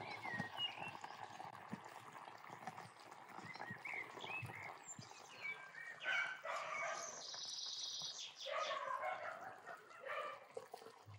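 Birds chirping and calling, with other animal calls among them, over a steady hiss; the calls come thicker from about halfway through.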